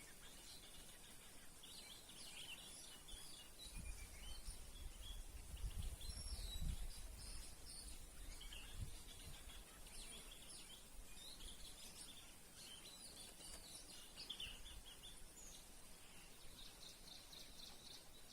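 Birds calling outdoors: many short chirps and whistled notes through the whole stretch, over a steady high hiss. A low rumble rises between about 4 and 9 seconds in.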